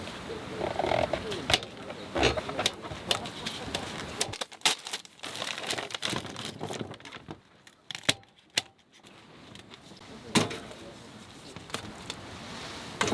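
Crinkling and rustling with irregular sharp clicks and knocks, as of things being handled.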